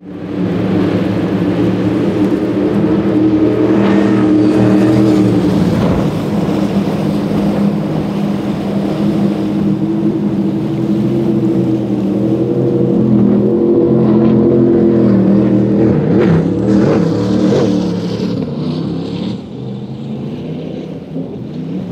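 High-performance offshore powerboat engines running at high speed, a loud, steady, deep drone whose pitch slides a few times as boats go by.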